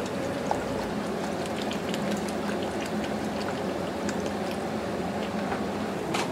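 Dark sauce being poured from a plastic bottle into a pot of simmering pork, with small splashes and bubbling, over a steady kitchen hum. A sharp click about six seconds in.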